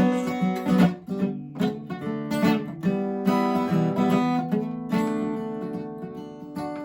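Acoustic guitar strummed and picked in an instrumental passage of a song, with no singing; chords are struck about once a second and left to ring.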